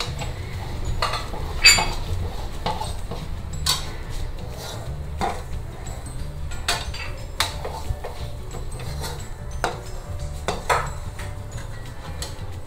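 A spatula stirring a thick gram-flour and almond cake mixture in a bronze kadai. It scrapes the pan and knocks against its side with irregular clinks, about one or two a second, as the mixture thickens toward its set consistency.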